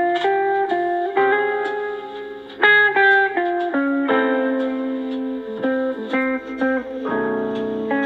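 Samsung Galaxy Note 20 Ultra ringtone playing: a plucked-guitar melody of short, clear notes.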